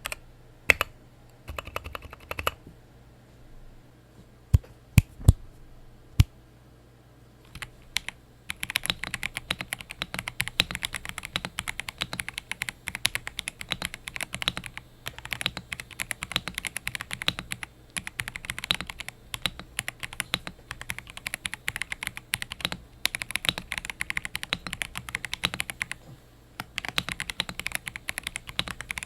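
Typing on a mechanical keyboard with tactile switches. A few keystrokes, then a handful of single loud key presses, then fast continuous typing from about a third of the way in, with a brief pause near the end.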